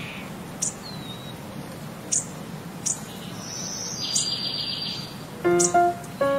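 Birds chirping: short, high chirps every second or so, with a brief falling whistle and a buzzy high trill, over a low steady hum. Plucked guitar music comes in near the end.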